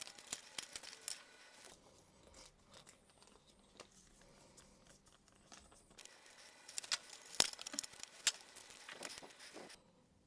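Faint crinkling and rustling of packaging, with light clicks and taps as cards and box contents are handled; it stops for a few seconds in the middle and picks up again, sharper, for the last few seconds.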